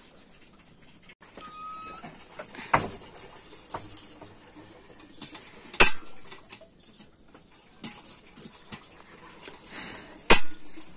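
Three sharp knocks over a quiet background, the loudest near the end, with a short high chirp about a second and a half in.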